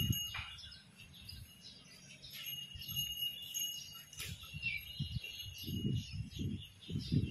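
Background birdsong: scattered short chirps over a steady high tone, with a few brief low sounds near the end.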